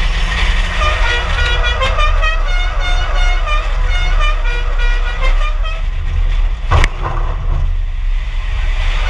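Car horns honking in many short toots over a steady low rumble, the honking dropping away after about six seconds. A single sharp knock comes about seven seconds in.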